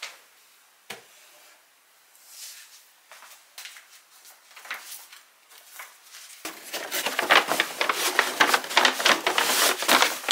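A cabinet door clicks shut, then papers rustle as they are handled; from about six and a half seconds in a kraft paper shopping bag crinkles loudly as folded clothes are pushed into it.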